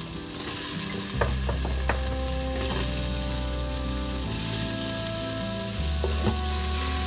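Chopped onion sizzling in hot olive oil in an Instant Pot Duo Nova's stainless steel inner pot on Sauté, an even frying hiss that grows louder about half a second in as more onion lands in the oil. A few light knocks come from the wooden spoon scraping the onion off a cutting board.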